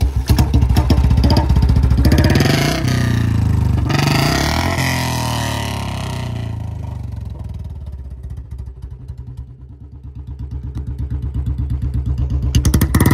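A BS4 Royal Enfield Bullet's single-cylinder engine fitted with a C-bend pipe and short bottle silencer, starting up loud and revved a few times in the first seconds. It then settles to a steady idle beat, and the throttle is opened again near the end.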